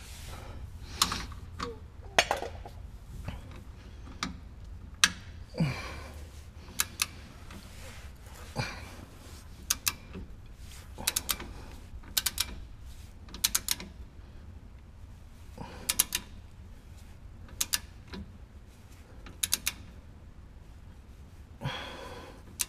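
Tekton torque wrench ratcheting on a shock skid bolt: short runs of sharp clicks, stroke after stroke, with pauses between as the bolt is tightened toward its torque setting.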